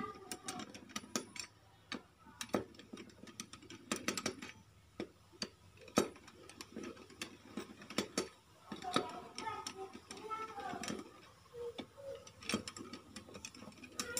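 Irregular metallic clicks, taps and clinks of hand tools and metal parts being handled, a few a second at uneven spacing.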